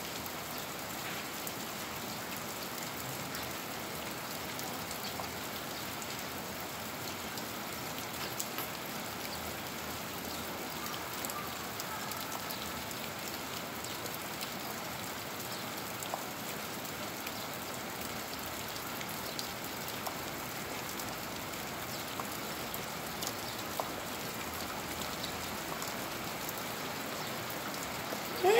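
Steady rain falling on a concrete road and potted plants: an even hiss with scattered small drop ticks. Right at the end comes a brief, loud pitched sound that rises.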